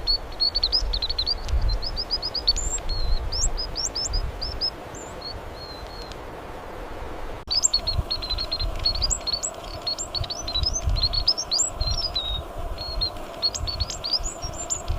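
A small songbird singing rapid, high twittering chirps, many sweeping sharply upward, in two long runs broken by an abrupt cut about seven seconds in. An uneven low rumble lies underneath.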